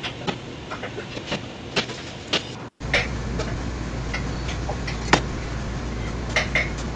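Scattered sharp clicks and taps of a knife and hands working a large fish on a cutting board, with one louder click about five seconds in. After a brief dropout about three seconds in, a steady low hum sits under the taps.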